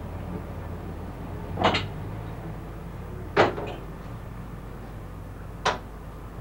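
Three sharp knocks of kitchenware being handled around a counter and stove, the second the loudest, over a low steady hum.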